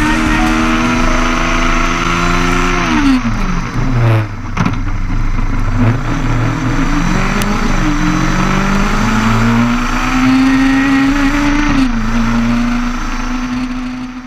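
Formula Student race car engine heard from an onboard camera, holding steady revs, easing off about three seconds in, then climbing in pitch again for several seconds before dropping back near the end. The sound cuts off abruptly at the very end.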